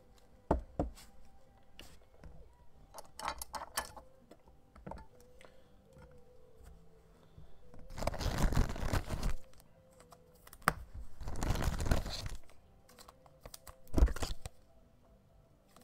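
Trading cards being handled: scattered light clicks and taps of card stock, two rustling slides of just over a second each in the second half, and a short knock near the end.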